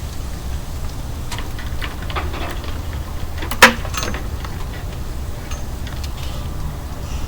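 Scattered light clicks and clinks of hardware being handled, with one sharp, much louder click about halfway through, over a steady low rumble.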